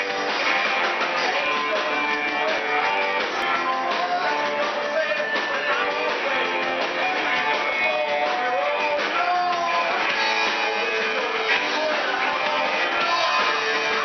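Live band playing a song, with guitar strumming prominent and a melody line bending in pitch over it.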